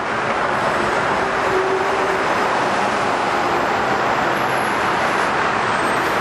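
Steady roar of expressway traffic, an even rushing noise with a faint hum under it.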